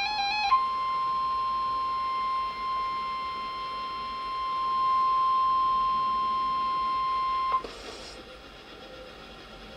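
NOAA Weather Radio 1050 Hz warning alarm tone, one steady high beep from a Radio Shack 12-521 weather radio, sent as the required weekly test; it sounds for about seven seconds, then cuts off with a click, leaving faint static hiss. Just before the tone starts, about half a second in, a train horn's wavering chord stops.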